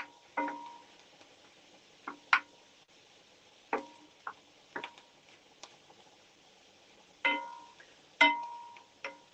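Wooden spoon knocking against a cast-iron pan while stirring: about ten sharp, irregular knocks, each with a brief metallic ring, the loudest about two seconds in and near the end.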